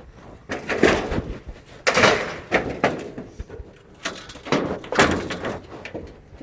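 Scrap metal from a torn-down shed clanging and rattling as pieces are thrown onto a trailer: a series of crashes, roughly one a second.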